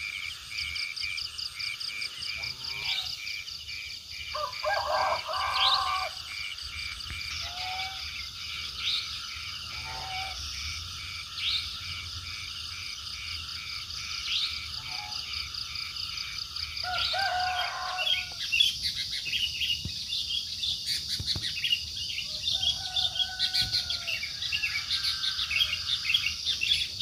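Forest ambience of frogs and insects calling steadily in fast pulsing trills, with a short rising chirp about every three seconds and scattered lower bird calls now and then.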